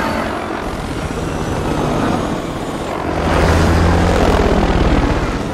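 Helicopter flying overhead, its rotor blades chopping in a fast, even beat over a steady engine hum, growing louder about three seconds in.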